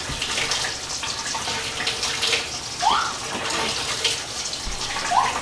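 Kitchen sink faucet running steadily, left on so the tap water comes up to hot. Two brief rising squeaks come through, about three and five seconds in.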